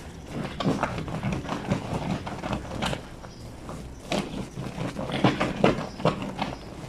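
A wet blanket being hand-washed on a granite washboard sink: irregular wet slaps and scrubbing strokes of soapy fabric against the stone.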